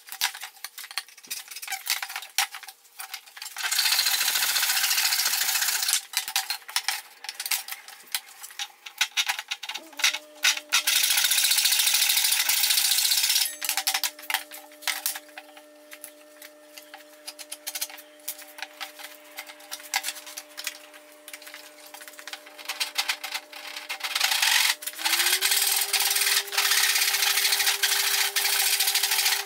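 Handsaw cutting through a softwood 2x4 in several bouts of quick rasping strokes, the last starting near the end. In between, clicks and knocks as the board is shifted and quick-clamps are set.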